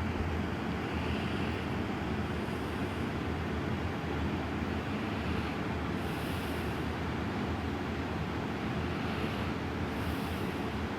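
A sleeping woman's slow breathing, faintly heard about once every four seconds over a steady background hiss.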